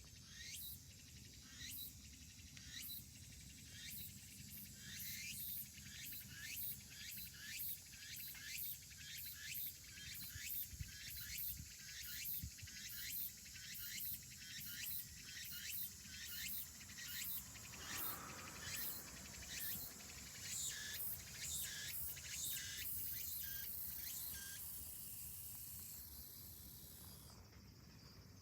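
Insect song: a long run of rhythmic high-pitched pulses, about one or two a second, growing louder past the middle and fading away near the end, over a faint steady low hum.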